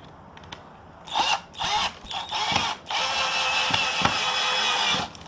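Electric drill driving a screw into the easel's wooden frame: a few short bursts from about a second in, then one steady run of about two seconds that stops just before the end.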